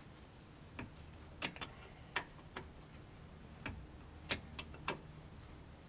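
Faint, irregular metallic clicks of a hand wrench on an 18mm brake caliper bolt, refitted and turned a short swing at a time because there is no room for a ratchet.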